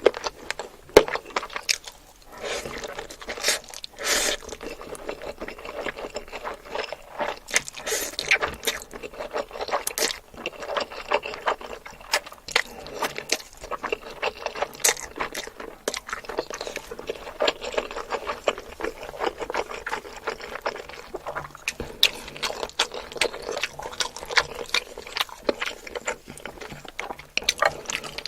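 Close-miked eating sounds: chewing, with many quick, irregular clicks and crunches.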